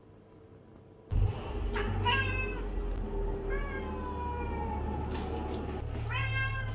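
Lynx point Siamese cat meowing three times, the middle call the longest and slowly falling in pitch. A low rumble sets in suddenly about a second in and runs under the calls.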